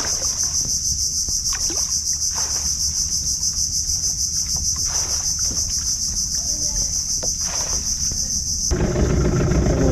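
Insects buzzing steadily in a high, fast-pulsing chorus. Near the end it cuts abruptly to an engine running.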